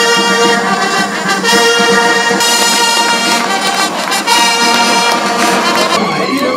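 Brass band music: trumpets and trombones playing held chords that change every second or so.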